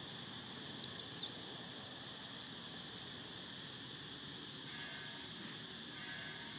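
Steady, high insect drone with thin, high chirps that rise and fall in pitch, several in the first three seconds and a few more around five seconds in.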